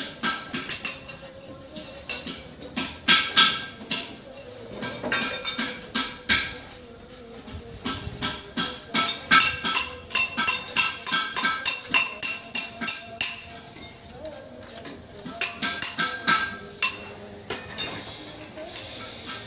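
Hammer blows on metal, coming in quick runs of several strikes a second with short pauses between. Each blow leaves a bright metallic ring, typical of beating a steel panel.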